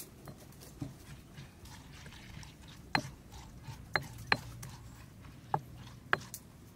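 Stone pestle pounding and grinding a wet chili paste in a stone mortar: a handful of sharp stone-on-stone knocks at uneven intervals, with soft wet mashing between them.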